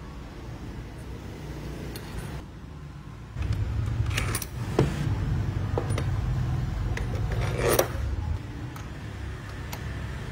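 Metal parts clinking a few times over a steady low rumble that grows louder about a third of the way in.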